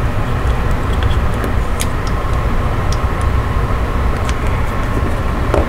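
Steady low rumbling background noise with a few faint light clicks.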